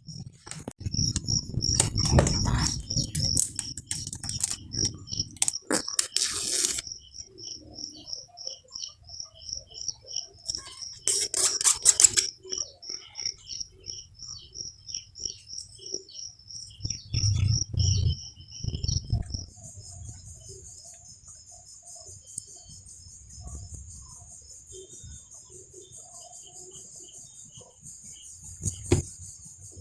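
Cardboard box and packaging being handled and opened, with a few sharp clicks and knocks, over a rapid, even insect-like chirping at about four chirps a second. The chirping stops about two-thirds through and gives way to a steady high hiss.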